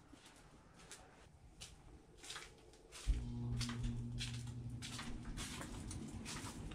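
Faint footsteps and handling sounds on a concrete garage floor. About three seconds in, a steady low hum starts abruptly and continues under further footsteps.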